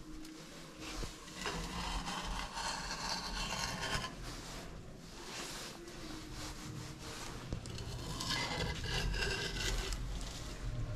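Hardened dough seal being scraped and rubbed off a clay cooking pot, a dry rasping scrape. It comes in two spells, about a second and a half in and again around eight seconds in.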